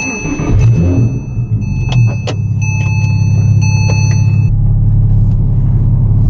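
Porsche 987 Cayman S flat-six engine started: it cranks unevenly, catches about two seconds in, then idles steadily. A high steady electronic tone sounds over the first couple of seconds.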